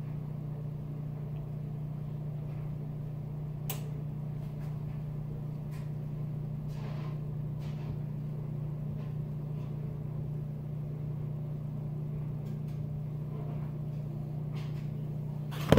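A steady low hum, with a few faint light clicks, and a sharp knock near the end.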